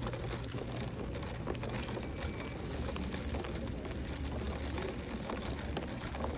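Airport terminal background noise: a steady low hum with many small scattered clicks and taps of handling.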